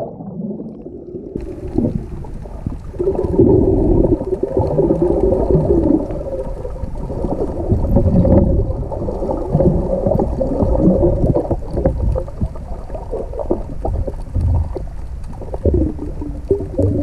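Muffled underwater sound picked up by a camera below the surface: water gurgling and bubbling around a snorkeler, with the high end cut off. There is a cloud of bubbles just after he dives in at the start.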